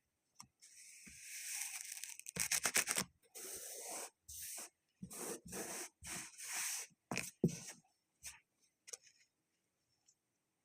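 Kinetic sand being cut and scraped with a tool, a series of short gritty scraping strokes with pauses between them and a quick run of strokes about two and a half seconds in. A few light taps follow near the end.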